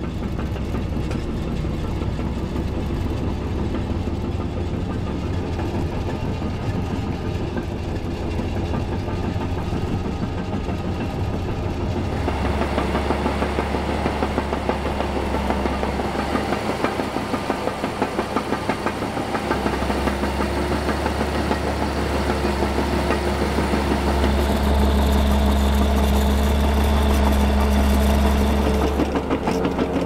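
Caterpillar D6D crawler's diesel engine running steadily under load at about 1400 revs, pulling an eight-furrow plough, with steel track clatter. From about twelve seconds in the track and soil clatter is louder, and the engine's low hum grows heavier near the end.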